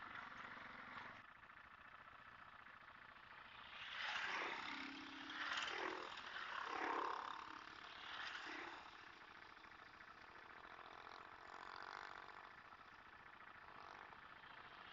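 Vehicles passing at a distance: several swells of engine and road noise rise and fade between about four and nine seconds in, over a faint steady engine hum.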